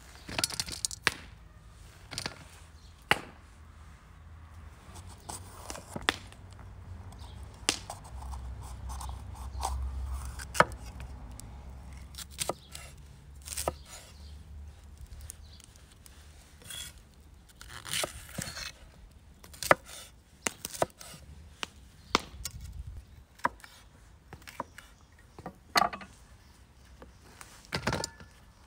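A large knife cutting bell peppers on a wooden cutting board: irregular sharp knocks of the blade striking the board, mixed with the crisp snaps of peppers being pulled apart by hand.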